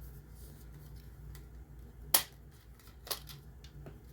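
A few sharp plastic clicks and knocks as a smoke alarm is handled: a loud one about two seconds in, another about a second later, and fainter ones between.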